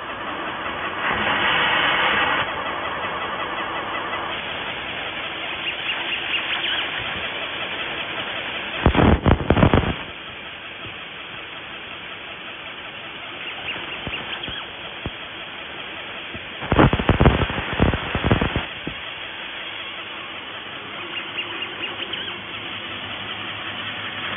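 1000 W fiber laser cutting a stainless steel sheet: a steady hiss from the cut, broken twice by spells of loud rapid crackling, about nine seconds in and again around seventeen seconds in.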